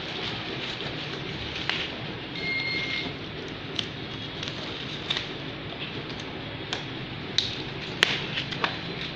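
Protective packing sheet and tape being peeled and pulled off a flatbed scanner: scattered crinkles and sharp crackles, the sharpest about eight seconds in, over a steady background hiss.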